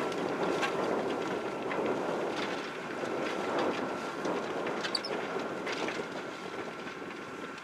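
Massey Ferguson 7616 tractor's six-cylinder diesel running steadily under load while pulling a four-furrow Kverneland plough, with a thin steady whine and scattered light clanks.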